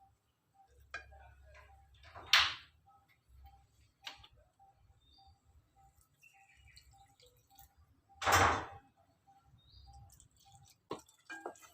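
Soft, even ticking about three times a second, broken twice by a short, loud whooshing hiss about six seconds apart, with a few sharp clicks near the end.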